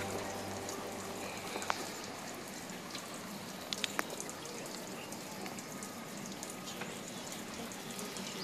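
Small floating pond fountain, its jet falling back onto the pond water in a steady rain-like patter, with a few faint ticks about two and four seconds in.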